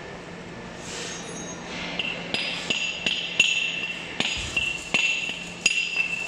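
Hammer blows on steel: about ten sharp, ringing metallic strikes at an uneven pace, starting about two seconds in.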